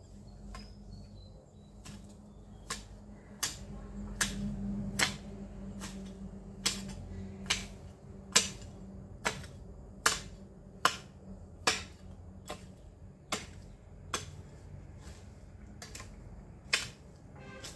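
A long-handled garden hoe chopping into weedy soil in steady strokes, one sharp strike a little more often than once a second.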